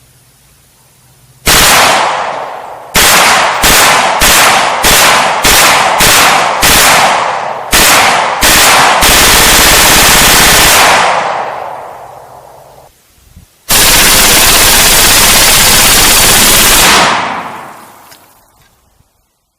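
FN P90 submachine gun (5.7×28mm) firing: one shot, then a string of about ten shots roughly half a second apart, then two full-auto bursts of about two and three and a half seconds. Each shot rings out with a long fading tail.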